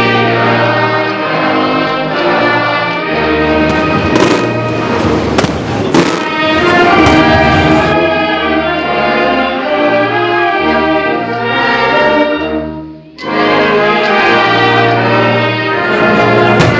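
Orchestral music with brass and strings, loud and steady. A few sharp firework bangs cut through it around four to six seconds in. The music drops out for a moment about thirteen seconds in, then resumes.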